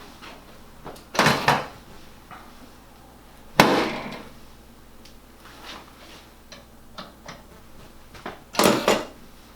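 Chiropractic drop table sections clacking down under adjusting thrusts. There are three loud knocks, the first and last each a quick double, with fainter clicks between them.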